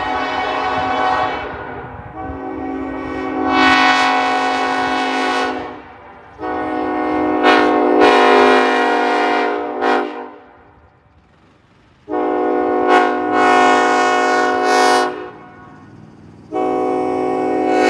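Nathan Airchime K5LLA five-chime train horn, with its number 2 bell reversed, sounding its steady chord. It gives a series of long blasts of about two to four seconds each, with short gaps between; the last one is still sounding at the end.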